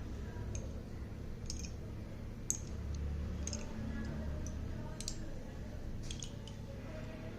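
Slate pencils clicking and tapping against each other as they are handled: irregular sharp clicks, roughly one a second, over a soft low rumble of handling.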